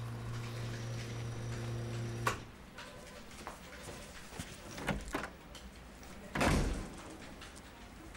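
A held low tone that stops about two seconds in, then a few scattered light knocks and one louder, deep thump about six and a half seconds in.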